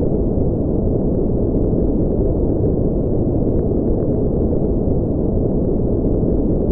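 Steady, deep rumbling noise, like brown noise, with nothing in the upper range: a sci-fi spaceship engine ambience that does not change.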